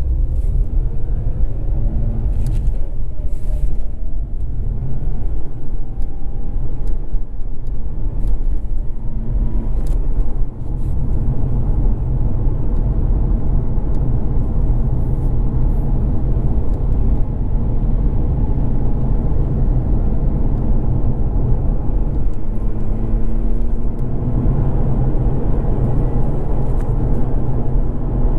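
Mazda RX-8's rotary engine and tyre rumble heard from inside the car while driving. The engine note rises as it speeds up near the start and again about 22 seconds in.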